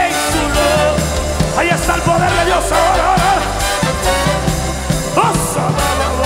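Upbeat live praise music from a band, with a steady bass line and drums, and a voice singing over it in places.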